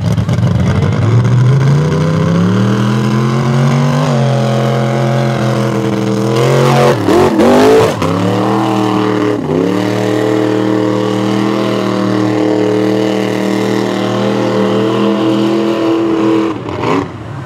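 Mega mud truck's engine at high revs, climbing in pitch over the first few seconds. The pitch wavers sharply for a moment about seven seconds in, then holds nearly steady near full throttle.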